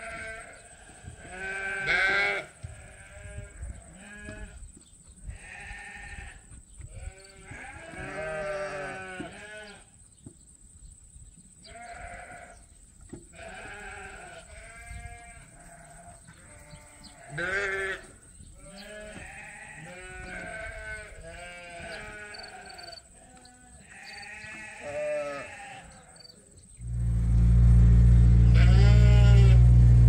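Suffolk ewes bleating over and over, each call wavering in pitch, some loud and close. About three seconds before the end a loud, low engine rumble starts suddenly and keeps on.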